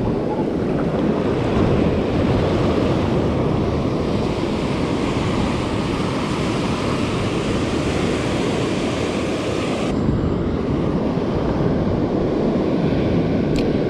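Loud, steady rush of wind buffeting the microphone over the wash of water; the upper hiss thins out abruptly about ten seconds in.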